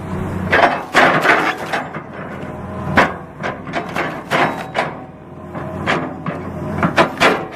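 A series of sharp, irregular knocks, about two a second, of wood being struck hard, over a faint low hum.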